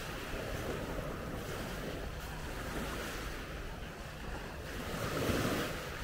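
Small waves washing onto a pebble shore, the wash swelling loudest about five seconds in, over a steady low rumble of wind on the microphone.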